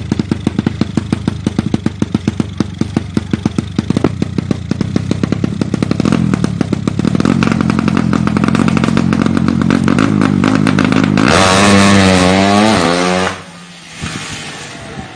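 Motorcycle engine revving: separate firing pulses at first, then climbing to a steady high rev that wavers up and down and grows loudest before cutting off sharply about 13 seconds in.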